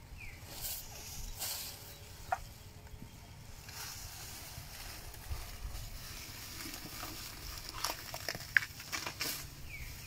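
Asian elephant eating fresh grass: rustling and crunching of the grass bundle as she handles it with her trunk and chews, coming in uneven bursts that are busiest near the end.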